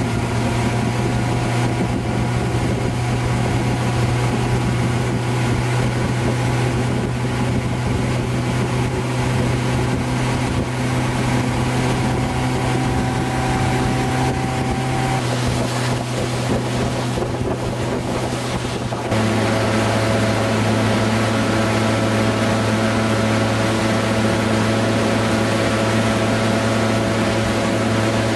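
Motorboat engine running steadily under way, with the rush of its churning wake and wind on the microphone. About two-thirds of the way through, the engine hum drops abruptly to a slightly lower pitch and the sound gets a little louder.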